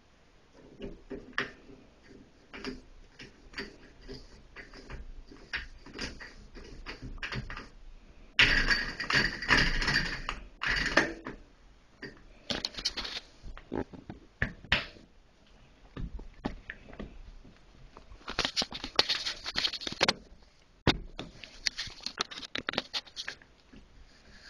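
Clicks, taps and knocks of a metal Moen cartridge puller being screwed onto a Moen 1222 shower cartridge's stem and adjusted against the valve body, with two spells of rougher scraping, about eight seconds in and again near the end.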